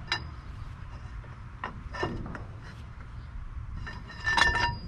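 A steel wrench clinks against the rusted nuts of a truck's spoke-wheel hub: a few sharp metallic clicks, then a cluster of ringing clanks near the end.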